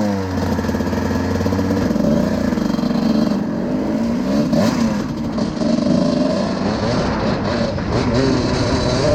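Suzuki RM125 two-stroke single-cylinder dirt bike engine running just after starting, revved up and down in repeated throttle blips.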